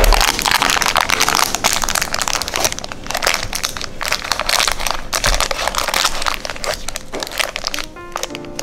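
Baking paper crinkling and a set chocolate Marie-biscuit cake crunching as gloved hands press on and pull apart the cut pieces. Dense, crackly handling noise, with background music underneath that comes through more clearly near the end.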